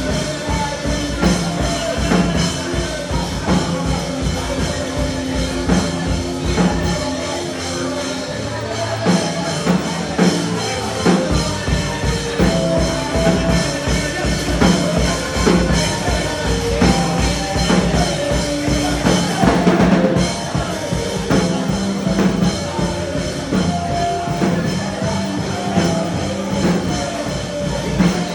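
Gospel band music playing, with a steady drum-kit beat and bass under sustained instrumental chords.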